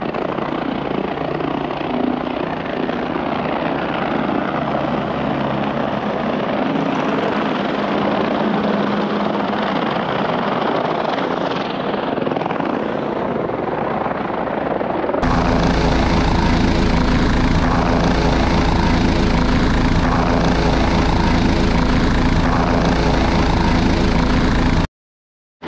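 Helicopter running at a mountain helipad, its turbine and rotor making a steady drone. About 15 seconds in, the sound cuts to a louder, deeper drone with a steady hum in it, and near the end the sound drops out for under a second.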